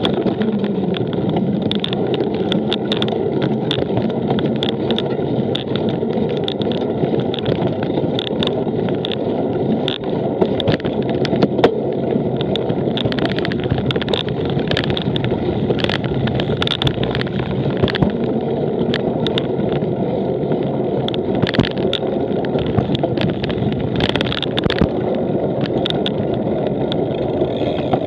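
Cyclocross bike being ridden over rough ground: a steady rumbling noise with frequent small clicks and rattles from the bike, and wind on the microphone.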